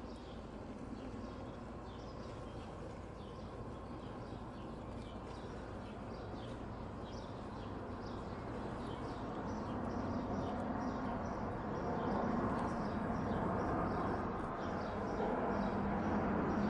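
Boeing 787 Dreamliner on final approach with its gear down, its turbofan engines a broad rumble growing steadily louder as it comes overhead. Birds chirp in short, quick, repeated calls during the first half.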